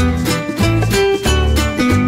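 Background music: an upbeat tune of plucked strings over a bass line, with a steady beat.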